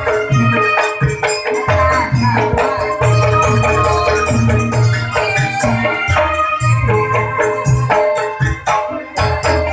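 Loud jaranan accompaniment music: heavy drum beats under ringing metallic gong-chime tones, with a steady shaken rattle over the top.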